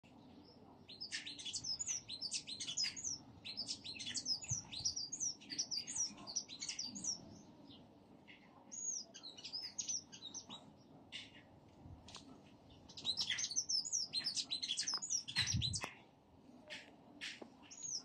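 Small songbirds chirping in a tree: runs of quick, high, sharp chirps, busiest in the first seven seconds and again from about thirteen seconds, with thinner calling between. A soft low thump comes near the end.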